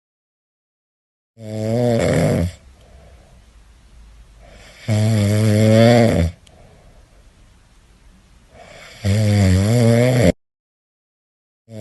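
Cat snoring: three long snores about four seconds apart, each lasting over a second with a wavering pitch and stopping abruptly, with faint breathing between them.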